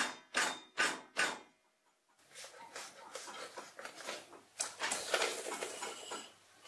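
Folded bellows way cover being pressed and fitted onto a lathe's linear rail: four quick crinkling presses in a row at the start, then a run of rustling and scraping as the folds are pushed and tucked into place.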